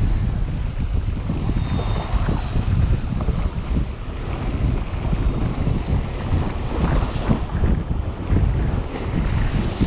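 Wind buffeting the microphone in gusts, over surf washing against shoreline rocks.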